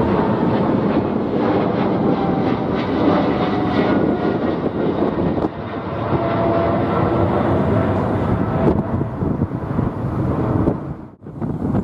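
Boeing 777-300ER's twin GE90-115B turbofans at climb power passing directly overhead on departure: a loud, steady jet roar with a few faint whining tones. The sound drops out briefly near the end.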